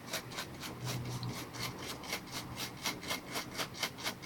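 A stiff brush scrubbing a laptop motherboard wet with isopropyl alcohol, in quick, even back-and-forth strokes of about four a second, cleaning flux and solder residue from the pads where the DC jack was removed.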